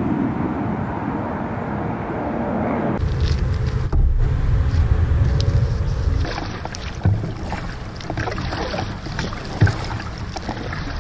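Outdoor riverside ambience: a steady rushing noise for about three seconds, then after a sudden change, wind rumbling on the microphone with scattered small knocks and clicks.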